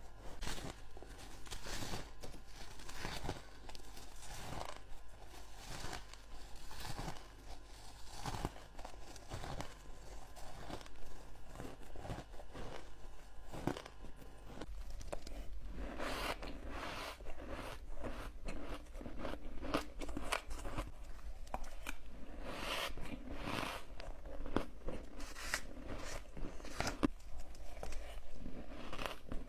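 Hard ice being bitten and chewed close to the microphone: a steady run of sharp, crisp crunches that come thicker and louder about halfway through.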